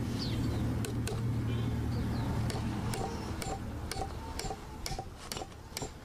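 Claw hammer striking a nail into a wooden pole, a steady run of sharp knocks about two a second.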